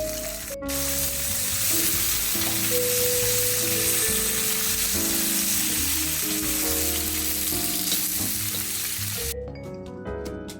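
Food sizzling as it fries in hot fat, a steady hiss that cuts off abruptly near the end, over background music with mallet-like notes.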